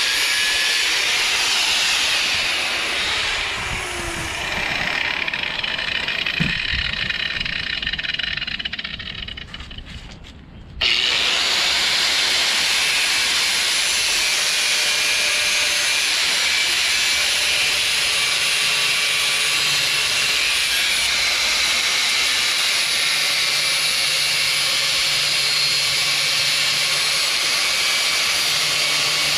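Porter-Cable corded angle grinder with a cutoff wheel cutting steel on a mower's blade adapter, a steady high whine with hiss. It dies down to a lull around ten seconds in, then cuts back in loud about a second later and runs steadily.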